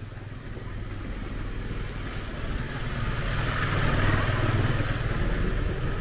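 Small motorcycle passing along the lane, its engine getting louder and closest about four seconds in, then easing off.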